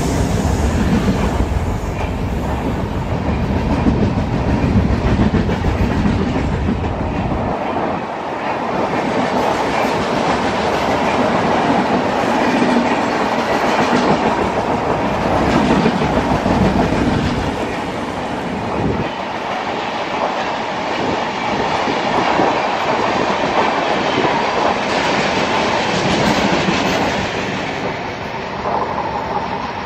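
An express train's passenger coaches run past at speed without stopping, making a continuous loud rush of wheels on the rails. The sound eases a little as the last coach draws away near the end.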